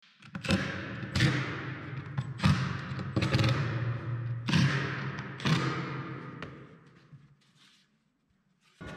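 Cordless driver driving screws into oak slats in short separate bursts, about six over several seconds, over a steady low hum; it dies away about two thirds of the way in.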